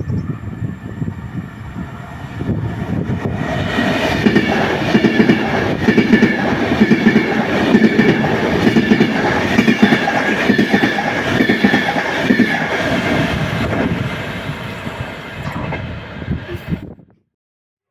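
A train passing through the station with a rapid clatter of wheels over the rails and a steady high whine above it. It builds about four seconds in, eases off later on, and cuts off suddenly just before the end.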